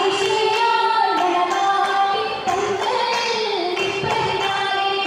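Girls singing a Mappila song for an Oppana dance, several voices together in sustained, gliding lines, with the dancers' hand claps keeping time.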